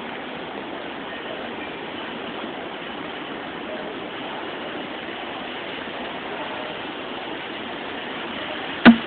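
Steady hiss of store background noise, with a single sharp knock near the end that is the loudest sound.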